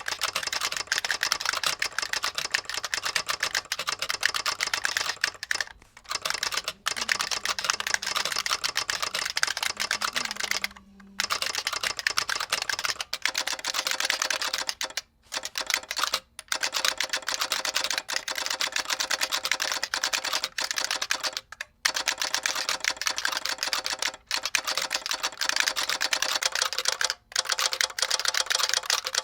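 Fast, continuous typing on an IBM Model F62 buckling-spring keyboard with an added solenoid that clacks along with each keystroke. The typing pauses briefly several times.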